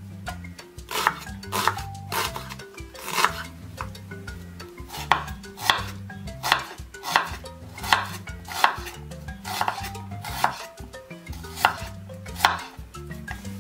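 Chef's knife slicing through an onion and striking a wooden cutting board, with sharp knocks at an uneven pace of about one a second. Background music plays underneath.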